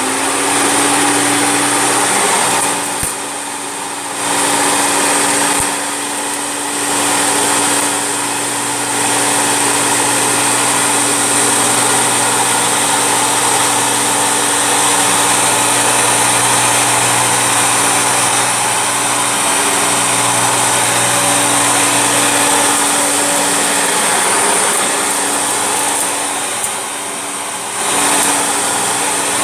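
Vacuum cleaner switched on, its motor spinning up at once and then running steadily with a constant hum and hiss while it makes a second pass over a floor strewn with hair. The level dips briefly a few times.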